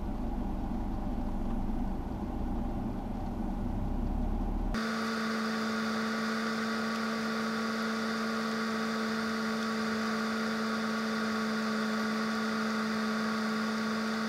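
A warm 2.0-litre turbocharged four-cylinder of a BMW 330i idling in park, heard from inside the cabin. About five seconds in, the sound switches abruptly from a low rumble to a steady, higher hum with a hiss, which then runs on unchanged.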